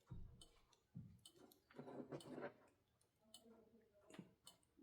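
Faint, irregular clicks, a dozen or so scattered through, from a source that is not identified.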